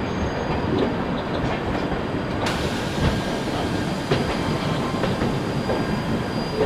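Indian Railways express train running on the track, heard from aboard a coach: a steady rumble with wheels clacking over rail joints. About two and a half seconds in, the hiss suddenly brightens.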